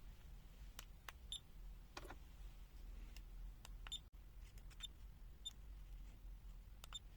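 Faint scattered clicks, about six of them, several with a brief high-pitched chirp, from the controls as the supply voltage feeding the multimeter is turned down.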